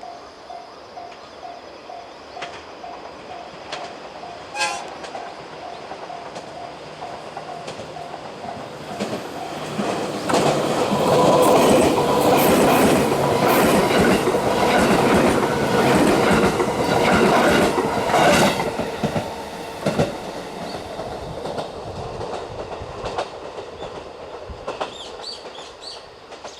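Level crossing warning bell dinging about twice a second, then a JR 221 series electric train passes through the crossing. The passage builds to a loud rush of running noise with rapid clickety-clack of wheels over rail joints, then fades away. Faint bird chirps come in near the end.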